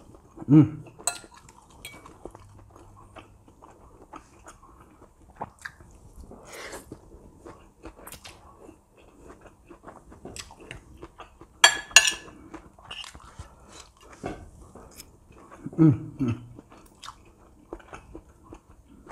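Close-up chewing of soft dumplings and tofu, with a stainless knife and fork scraping and clinking on a ceramic plate while the next piece is cut; the loudest moment is a sharp clatter of cutlery on the plate about twelve seconds in. Two short hums from the eater, near the start and about sixteen seconds in.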